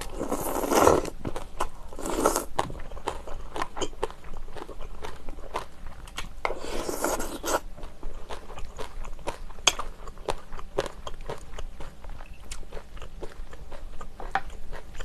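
Close-miked eating of kimchi and rice soup: steady wet chewing and crunching with many small clicks, broken by three longer, louder rushes of sound near the start, about two seconds in and about seven seconds in.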